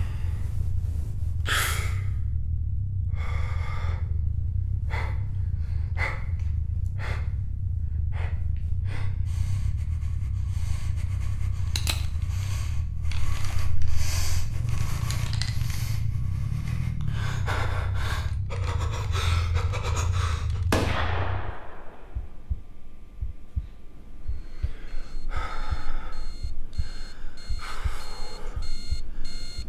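A man panting and gasping hard, breath after breath, over a low steady hum. About 21 seconds in, a rising whoosh ends the hum, and in the last few seconds a high electronic beeping, like an alarm clock, starts up.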